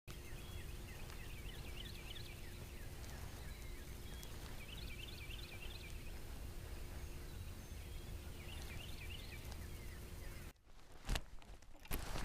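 A songbird singing three short phrases of quick, sharp notes, a few seconds apart, over steady outdoor background noise with a faint low hum. Near the end the background cuts off and a few clicks follow.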